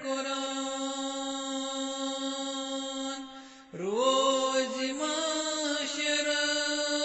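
A voice chanting a devotional qalaam (Sufi kalam), holding long, drawn-out notes. It breaks off briefly a little past three seconds, then slides up into the next held note.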